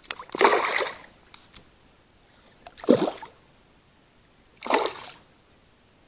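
Hooked chub splashing at the water's surface while being played: three short splashes about two seconds apart, the first the loudest.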